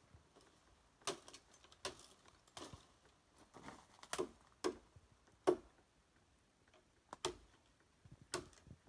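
A machete chopping at a green bamboo pole: about eight sharp, hollow knocks at uneven intervals, the loudest a little past the middle.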